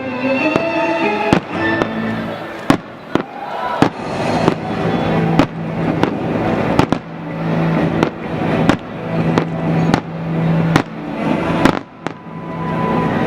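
Fireworks shells bursting in a steady string of sharp bangs, about one a second, over show music.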